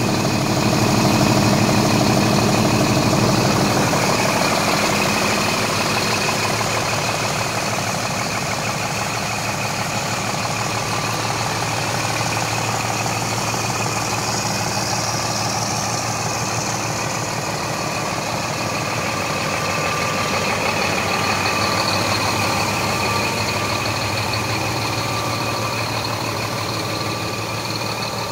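Scania G420 tractor unit's 420 hp inline-six diesel engine idling steadily, a little louder in the first few seconds.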